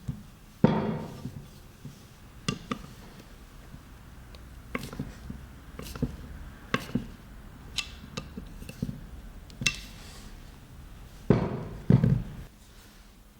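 Irregular sharp metallic knocks and clacks as the small steel vise and its parts are handled and set down, with a heavy thunk about a second in and two more near the end.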